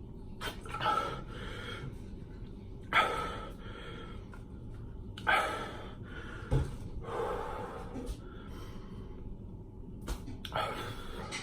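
A man's sharp gasps and breaths, five or six of them about every two to three seconds, with one short knock about six and a half seconds in.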